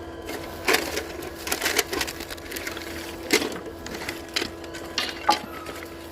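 Sawmill ambience: a machine's steady hum under irregular knocks and clatter.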